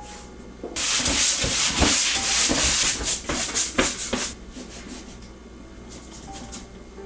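A paintbrush scrubbing thin brown oil paint across a primed canvas: a run of quick scratchy strokes beginning about a second in and lasting about three and a half seconds.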